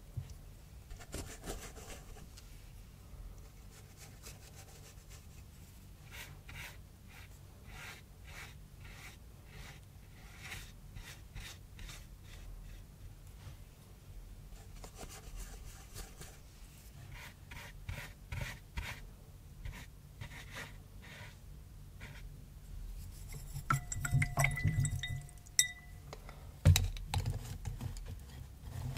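Paintbrush strokes scratching and rubbing gouache across cardboard in a string of short strokes. Near the end a glass paint dish clinks and rings a few times, followed by a couple of sharp knocks.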